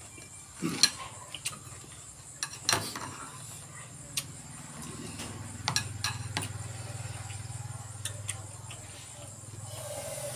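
Mealtime sounds: chewing and scattered sharp clicks of a spoon and fingers against a plate of shrimp in sauce. A low steady hum comes in about halfway through.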